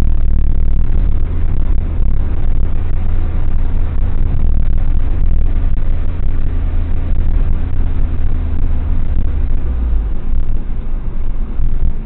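Car cabin noise: a steady low rumble of the engine and tyres on the road, heard from inside the car.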